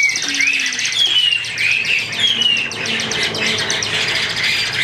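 Several Chinese hwamei (Garrulax canorus) singing over one another: a rapid high trill alongside loud, repeated slurred whistles that fade off near the end.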